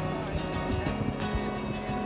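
Background music with held notes and a steady plucked beat.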